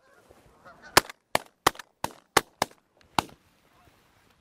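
A volley of about seven shotgun shots in quick succession from several hunters firing at Canada geese coming in to land, the shots spread over about two seconds with the last a little apart.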